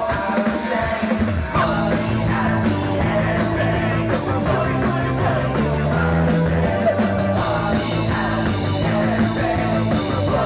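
Live indie rock band playing: a woman sings into a microphone over guitar, drums and a stepping bass line, and the full band comes in about a second and a half in.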